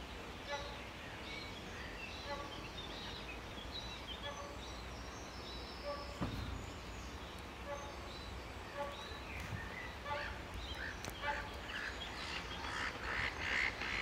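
Outdoor lake ambience with birds calling throughout: short, evenly pitched calls and higher chirps. Near the end come rapid splashing strokes as a whooper swan runs across the water to take off.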